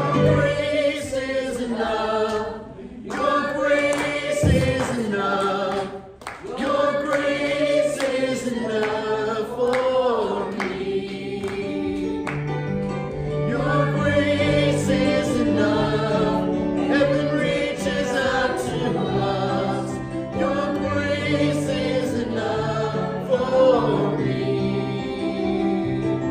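A group of voices singing a hymn together with instrumental accompaniment, as in church worship music.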